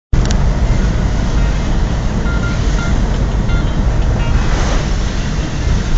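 Van driving on a wet road, heard from inside the cabin: steady engine and road noise with heavy wind rumble on the microphone. Tyres hiss on the wet surface, swelling about four and a half seconds in.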